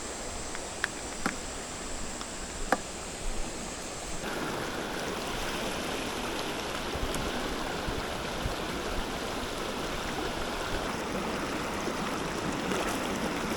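Water of a mountain stream flowing over rocks, a steady rushing hiss that grows fuller about four seconds in. A few sharp clicks in the first three seconds and a thin high steady tone over the first four seconds sit on top of it.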